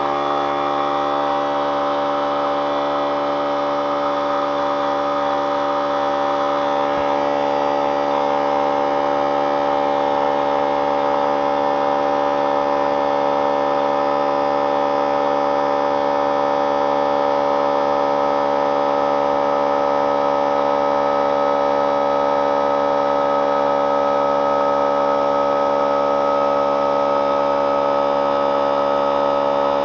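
3-gallon pancake oilless air compressor running steadily, its motor and pump giving a loud, even hum of many tones as it pumps air into the tank.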